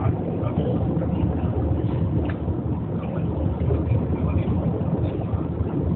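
Steady low rumble of airliner cabin noise in flight.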